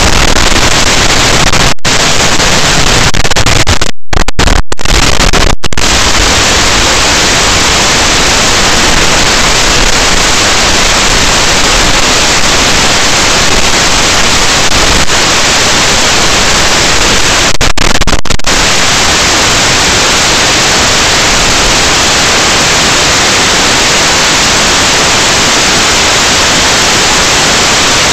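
Loud, steady static hiss of a blank video signal after the recording has ended. It cuts out for split seconds a few times in the first six seconds and again at about eighteen seconds.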